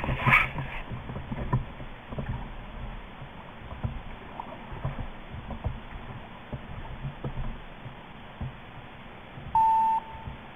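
Water slapping and knocking irregularly against the hull of a small paddled boat, with a louder bump at the start. Near the end comes one short intercom beep.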